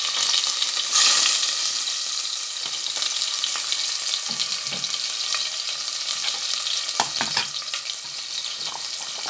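Garlic, onion and cumin, mustard and fenugreek seeds frying in hot oil in a stainless steel pot: a steady crackling sizzle. It flares louder briefly about a second in.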